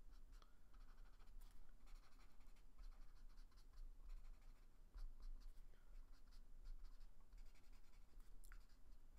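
Chisel tip of a Prismacolor marker rubbing across sketchbook paper in a run of faint, quick strokes, laying in dark gray.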